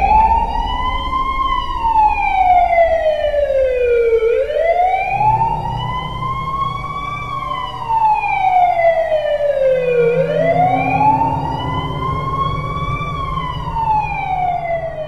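Emergency vehicle siren in a slow wail: the pitch rises quickly, then falls slowly, repeating about every six seconds, three times over.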